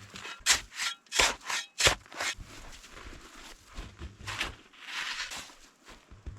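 Hand tool scraping during digging of a snow trench. A quick run of short, sharp scraping strokes comes about a second in, then a few longer, slower scrapes near the end.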